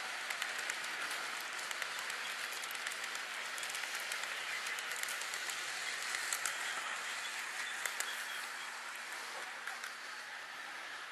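HO scale model freight train of double-stack container cars rolling past close by: a steady rushing of wheels on track, dotted with many small clicks, easing off slightly near the end.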